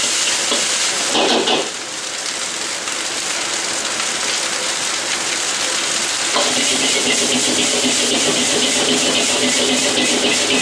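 Egg fried rice sizzling in a wok over a roaring gas wok burner, with a metal ladle stirring and scraping the rice against the pan. The noise drops a little under two seconds in and grows louder again a little past six seconds.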